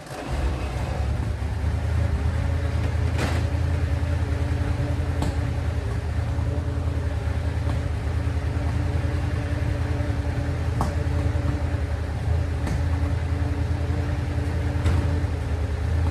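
An engine idling steadily, a continuous low rumble with a few faint clicks.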